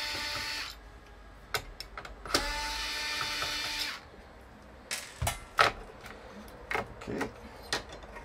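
Small cordless electric screwdriver whirring as it backs out screws from the miner's power-supply housing: one run ends shortly after the start, and a second runs for about a second and a half about two seconds in. A few sharp clicks and knocks follow in the second half.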